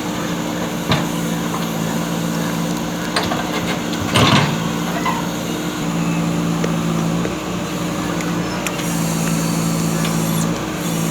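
JCB backhoe loader's diesel engine running steadily at work, with a couple of sharp knocks and a louder clatter about four seconds in.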